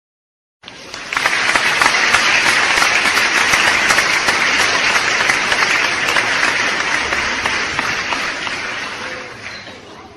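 Crowd applauding: a stock applause sound effect of many hands clapping, swelling in about a second in, holding steady, then fading out over the last few seconds.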